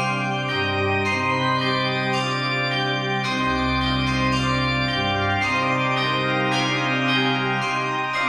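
Organ music: sustained chords over a bass note that changes every second or two, with quicker notes struck above.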